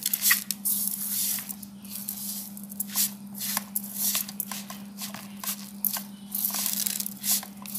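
A hand rubbing and squeezing grated coconut with sugar, a quick, irregular scratchy rustle of the grainy mixture, over a steady low hum.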